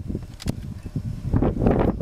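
Wind buffeting the camera microphone in a low, uneven rumble that swells in a gust near the end, with a sharp click about half a second in.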